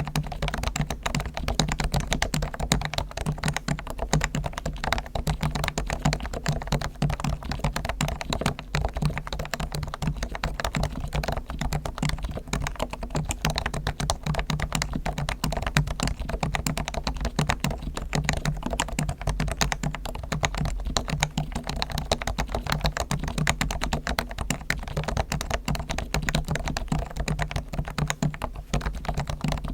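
Continuous fast typing on a Realforce R1 Topre electrostatic capacitive keyboard, fully lubed with Krytox on the springs and sliders and with foam dampening inside; the keystrokes come in a dense, even stream with a deep, muted tone.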